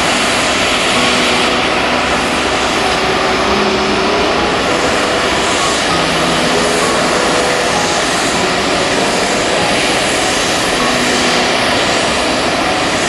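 Four-engine Airbus A380 jet at taxi power, with Rolls-Royce Trent 900 engines, making a steady, even rumble and hiss that does not rise or fall, mixed with heavy rain.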